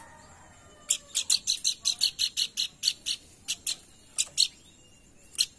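Pelanduk bukit, a babbler, giving a rapid series of short, sharp chirps, about five a second for two seconds. A few more chirps follow at uneven intervals, the last one near the end.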